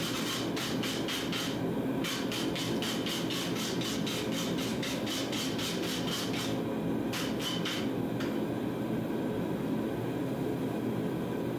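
Forging press running while its flat dies squeeze a red-hot billet to set the forge welds: a steady mechanical hum with a fast ticking on top, about four or five ticks a second, that stops briefly twice and then again near the end.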